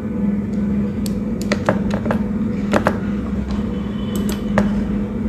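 A steady low hum, with a handful of sharp, short clicks scattered through it, bunched between about one and three seconds in and again around four seconds.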